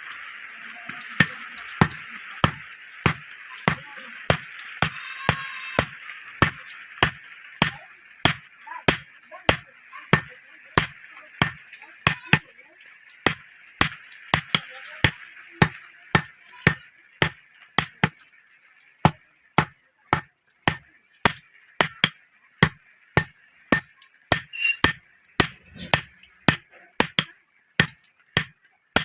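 Blacksmith's hammer striking metal in a steady rhythm, about two blows a second, while a small iron rod is forged into a sickle. A hiss sits under the blows through the first half.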